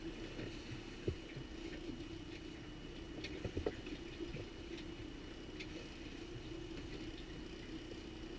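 Fishing boat's outboard motor running with a steady hum, water sloshing against the aluminium hull, and a few light knocks on the boat.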